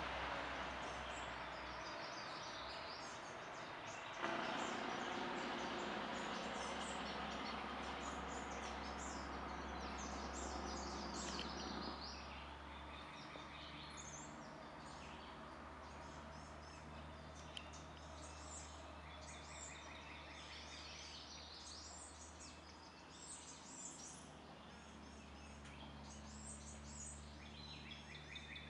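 Small birds chirping and singing in many short, high calls over steady outdoor background noise. The noise is louder for roughly the first twelve seconds and then drops, leaving a low hum under the birdsong.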